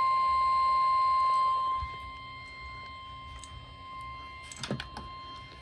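NOAA Weather Radio warning alarm tone: a steady, high, 1050 Hz tone signalling that a warning broadcast is about to follow. It is loud at first, drops to a lower level about a second and a half in, and carries on steadily, with a few faint clicks near the end.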